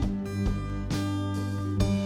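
Background music carried by a strummed acoustic guitar, with steady note changes.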